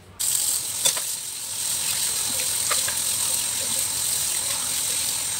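Kitchen tap running steadily into a sink while a luffa is rinsed under it, with a few light knocks as it is handled. The water starts abruptly just after the start.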